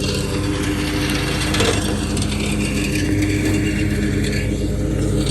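Engine-driven machine running steadily, with mechanical rattling and clattering over the engine note.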